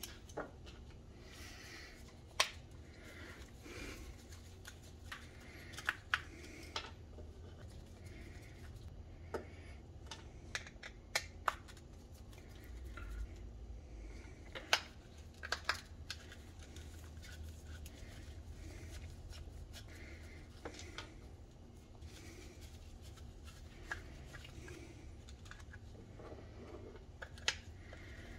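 Scattered small metallic clicks and taps from working an Allen wrench in the small case screws of a 1/4-inch drive power ratchet, and from handling the tool and setting screws down on a wooden workbench, over a faint steady low hum.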